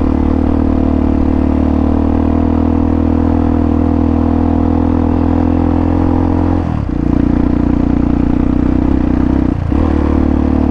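Hawk 250's single-cylinder four-stroke engine running steadily under load as the motorcycle is ridden on a dirt trail. Its note dips briefly and changes twice, about two-thirds of the way in and again near the end.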